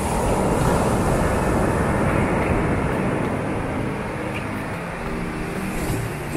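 Surf breaking on a sandy beach: a steady, loud rushing wash, with faint background music showing through near the end.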